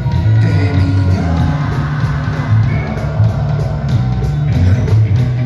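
Live rock band playing loud through the stage PA, with electric guitar, a heavy steady bass line and a singer on vocals.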